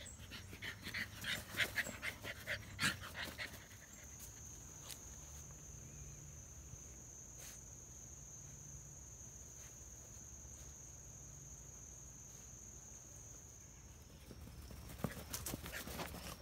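Great Pyrenees puppy running on artificial turf, its paws patting quickly for the first few seconds and again near the end, with panting. In between, a steady high-pitched whine sounds in the background.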